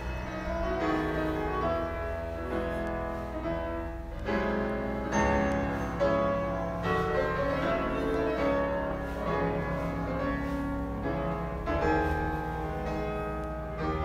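Background classical piano music, a flowing solo piano piece.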